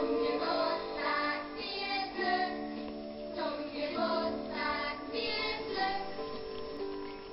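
Birthday song with a child-like singing voice over an instrumental backing, used as background music.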